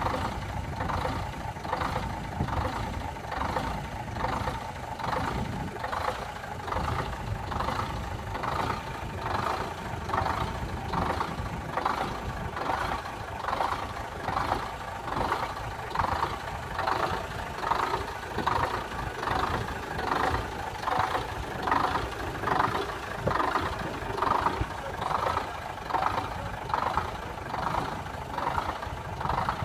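Lorry engine idling steadily, with a low rumble and a regular beat about three times every two seconds.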